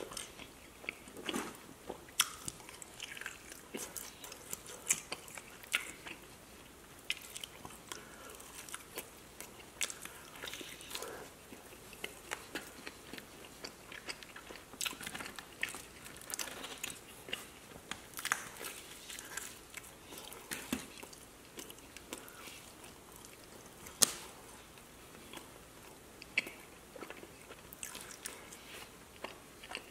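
A person chewing and biting through a meal of pizza and chicken wings, a steady run of short mouth clicks and bites, with one sharp, louder one about 24 seconds in.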